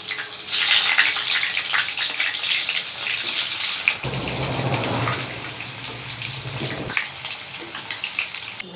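Hot oil sizzling and crackling as chicken-and-potato rolls deep-fry in a kadai. The sound changes abruptly about four seconds in and again near seven seconds, with a low hum under the sizzle between those points.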